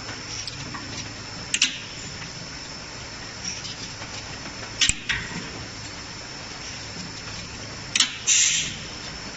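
Rotary beer bottle filling machine running: a steady hum and faint whine, with sharp clicks roughly every three seconds and a short hiss near the end.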